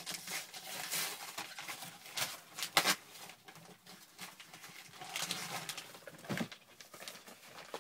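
Paper wrapping over a cardboard shipping box being torn and crinkled by hand, in several bursts.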